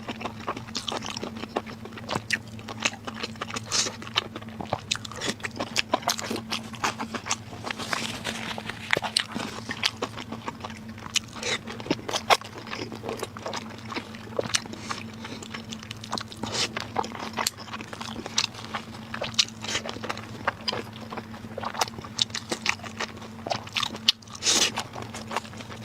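Close-miked mukbang eating: a person biting and chewing food, a steady run of short, crisp crunches and mouth clicks. A faint steady low hum sits underneath.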